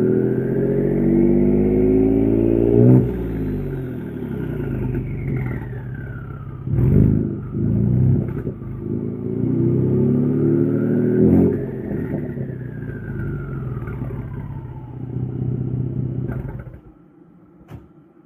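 Ford 2.7L EcoBoost twin-turbo V6 revved twice. Each time a high turbo whistle climbs in pitch with the revs, then glides down as the revs fall, with a short loud burst as the throttle closes. The engine sound drops away near the end.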